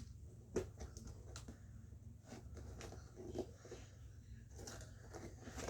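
Faint handling sounds of a toy box being worked open: a few light clicks and knocks over a steady low hum.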